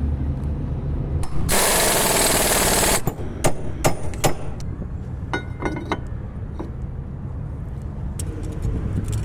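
Workshop tool noise: a loud burst from a power tool lasting about a second and a half, followed by a series of sharp metal knocks, some of them ringing, over a steady low hum.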